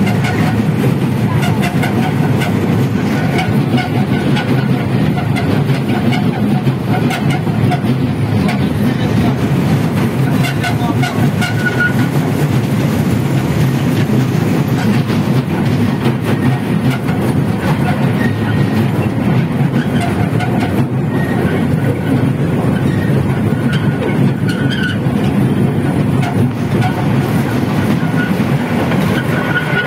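Park toy train running along its track, heard from on board: a steady, unbroken rumble and rattle of the moving carriages on the rails.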